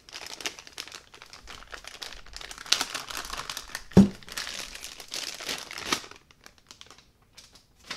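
Clear plastic bag crinkling and rustling as a cordless tool battery is unwrapped from it, with one sharp knock about halfway through as the battery bumps the wooden workbench. The crinkling stops about six seconds in, leaving only a few faint ticks.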